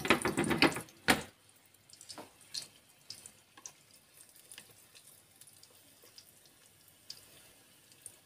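Banana rolls in wonton wrappers frying in a little oil over low heat: a dense sizzling crackle in the first second, then quiet with scattered small pops of oil.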